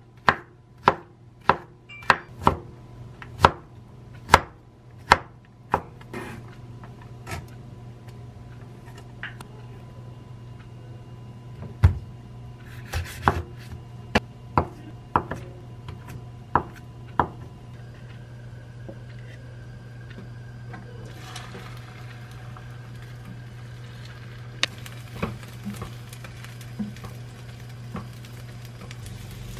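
Chef's knife chopping Korean zucchini into thin matchsticks on a wooden cutting board: a quick run of sharp strokes, a little over one a second, then sparser cuts, over a steady low hum.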